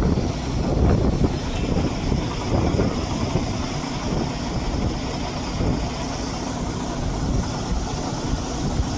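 A vehicle engine running steadily, a low rumble with a faint constant hum.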